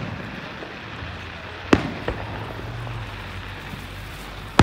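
Aerial fireworks shells bursting overhead: one loud bang a little under two seconds in, a smaller crack a moment later, and another bang right at the end.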